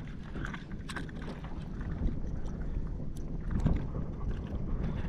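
Wind rumbling on the microphone on a small boat on open water, with water lapping at the hull and scattered light clicks and knocks.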